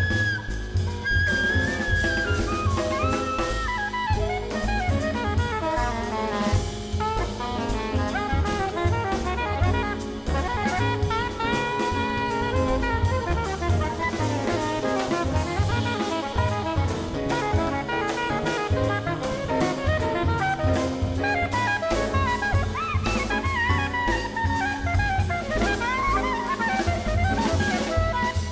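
Live jazz band playing, with a horn soloing in quick, winding runs over busy drum kit playing.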